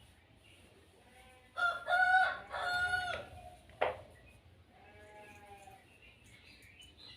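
A rooster crowing once, about a second and a half in: several short parts, then a long held note. A sharp click follows soon after.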